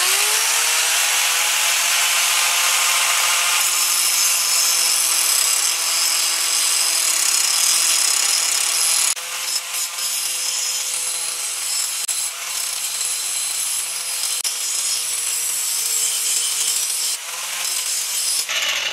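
Electric angle grinder with a metal grinding disc spinning up with a rising whine, then grinding along the steel cutting edge of a lawn mower blade held in a vise: a steady motor whine under a harsh, high grinding hiss. It is sharpening the blade's bevel and taking off a lot of metal because the blade is badly worn.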